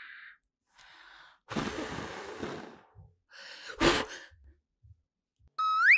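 A person blowing out candles on a cake: a long breathy blow about a second and a half in, then a second, sharper blow about four seconds in. A short rising whistle-like tone comes just at the end.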